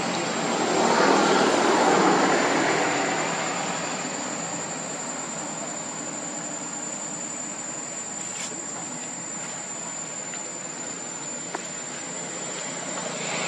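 Steady high-pitched insect drone. A broad rushing noise swells about a second in and fades away over the next few seconds.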